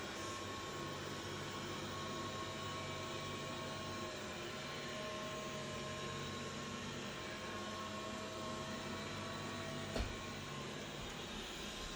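Dreame D9 robot vacuum running: a steady whir with a low hum and faint whining tones, and a single sharp knock about ten seconds in.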